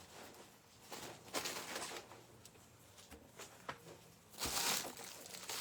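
Soft, intermittent rustling and crinkling of plastic packaging as bundles of artificial flower stems are handled, with a louder rustle about four and a half seconds in.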